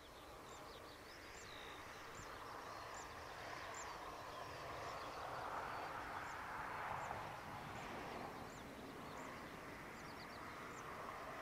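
Faint, distant jet engine noise from a taxiing Airbus A350-900 with Rolls-Royce Trent XWB engines, swelling toward the middle and easing again. Small birds chirp repeatedly over it throughout.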